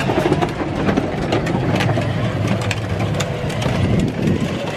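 Battery-powered ride-on toy Mercedes SUV driving over a concrete driveway: its small electric drive motors whirring and its hard plastic wheels rattling and clicking over the concrete.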